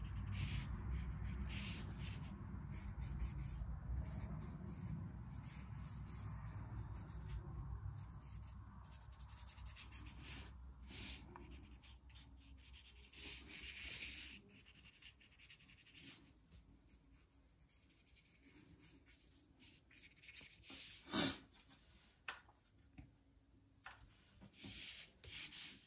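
Paintbrush strokes rubbing and scratching across watercolour paper, faint and irregular. A low rumble runs under the first ten seconds or so, and there is one sharp tap about twenty-one seconds in.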